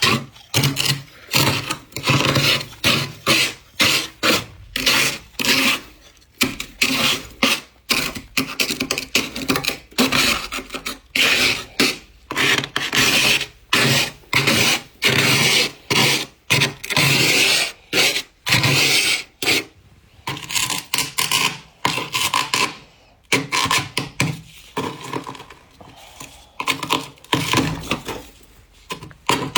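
Scraper scraping fluffy humidifier-grown frost off the inside of a freezer in quick repeated strokes, about two a second. The strokes thin out and become sparser after about twenty seconds.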